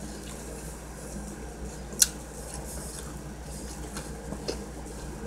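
A person quietly chewing a mouthful of sandwich and chips, with one sharp crunch or crackle about two seconds in and a few faint ticks later, over a steady low room hum.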